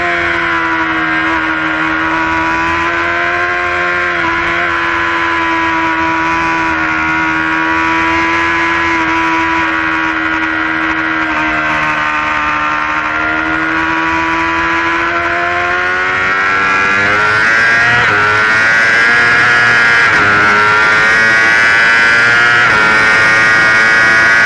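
Yamaha R6's inline-four engine on board at high revs, held fairly steady through a long bend, then accelerating hard: its pitch climbs in steps through gear changes about two-thirds in and gets louder, with rising wind rush.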